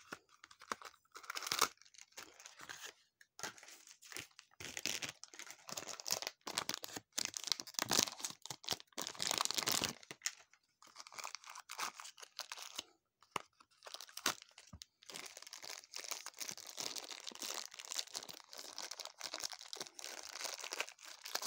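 Thin clear plastic bags being crinkled and torn open by hand, an irregular rustling broken by small clicks and taps.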